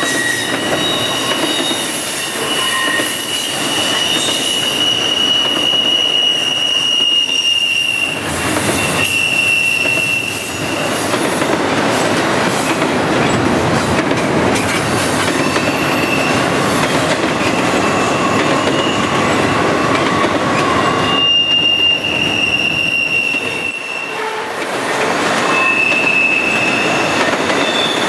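Double-stack container cars of a long freight train rolling past, a steady rumble and clatter of wheels on rail. High wheel squeals come and go several times as the wheels grind through the curve.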